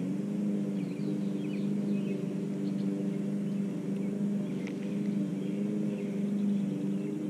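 A steady, low mechanical hum from a running motor, with faint bird chirps over it.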